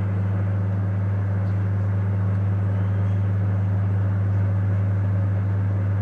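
Microwave oven running: a steady low hum with an even whir of the fan over it.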